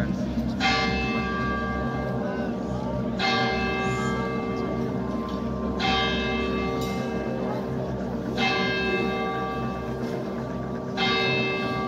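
Church bell tolling, struck five times about every two and a half seconds, each stroke ringing on and slowly fading, over a low steady hum.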